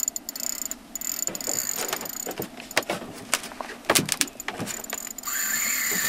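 Spinning reel clicking and ticking irregularly as it is worked with a fish on the line. A steady high whine sets in near the end.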